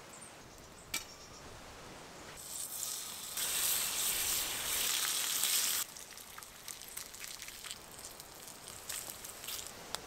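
A single sharp strike about a second in, then a loud steady sizzle of fat in a hot frying pan for about three and a half seconds that cuts off suddenly, followed by faint scattered ticks and rustles.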